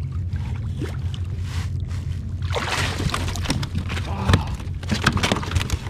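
Water sloshing and splashing around a kayak over a steady low rumble. The splashing turns busy and crackly about two and a half seconds in.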